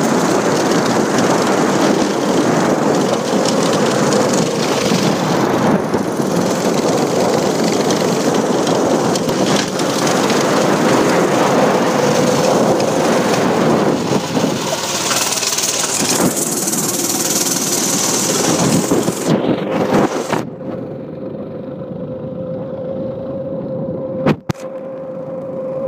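200cc drift kart engine running hard as the kart drives and slides across grass, a steady drone under a loud rushing noise. About twenty seconds in, the rushing cuts off abruptly, leaving a quieter, steady engine tone.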